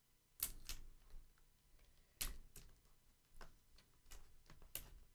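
Faint, scattered clicks and light taps, about half a dozen spread irregularly, from a laptop's replacement LCD panel and its ribbon cable connector being handled and fitted.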